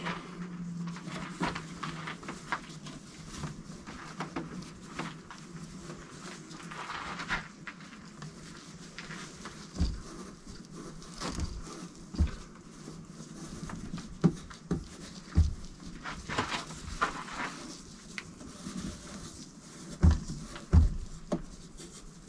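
Hands pressing a rigidizer-soaked fibre blanket into a stainless steel forge shell: rustling handling noise with scattered knocks and thumps, the loudest two close together near the end.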